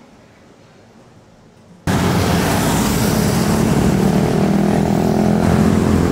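Faint low hum, then about two seconds in a sudden switch to loud road traffic: motorbikes and cars running and passing.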